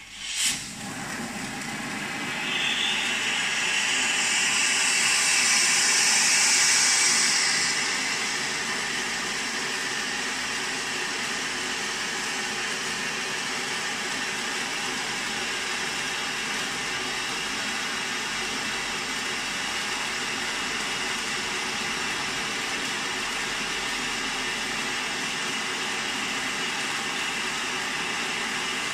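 Silver fountain firework burning with a steady spraying hiss. A sharp pop about half a second in, then the hiss grows louder for the first several seconds before settling to an even level.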